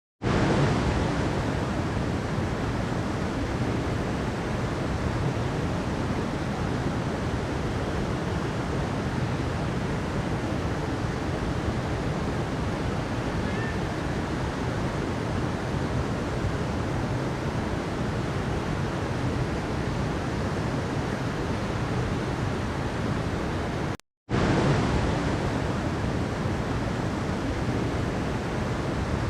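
River water rushing over a waterfall in a steady, even rush. It cuts out for a split second about three-quarters of the way through, then resumes.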